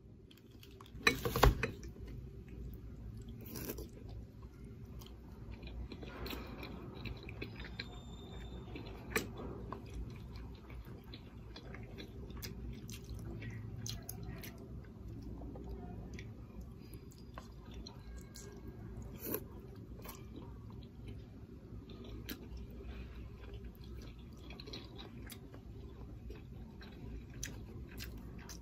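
A person eating liang pi, wide cold noodles, with chopsticks: quiet chewing and small clicks over a steady low background hum. Two sharp knocks about a second in are the loudest sounds.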